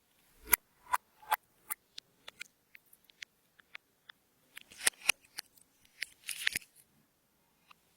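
Clear slime being worked by hand, giving off irregular sharp clicks and pops, with two short crackling clusters partway through.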